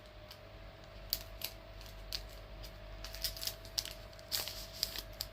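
A pack of trading cards being handled and opened: scattered short crinkles and clicks, with a faint steady hum underneath.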